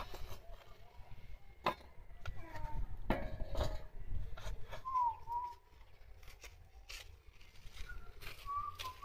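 Kitchen knife chopping green peppers on a wooden cutting board: a few sharp knocks in the first few seconds. Birds give short chirps around the middle and again near the end.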